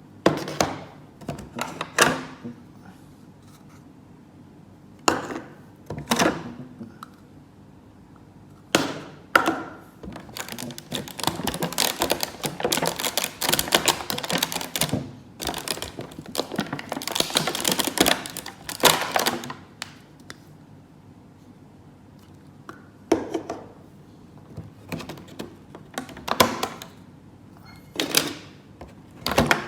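Plastic toys and packaging being handled: a series of sharp clicks and knocks, with a long stretch of dense crinkling and rustling in the middle.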